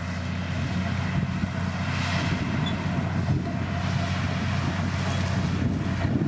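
D60P bulldozer's diesel engine running steadily under load, a low drone that grows louder during the first second and then holds, with a wash of noise above it.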